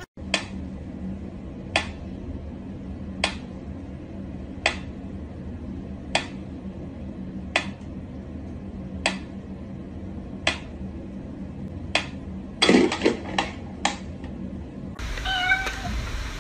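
Mechanical pendulum metronome ticking slowly and evenly, one sharp tick about every second and a half. A cat gives a short call near the end of the ticking. About three seconds before the end, a louder mixed noise with a wavering tone takes over.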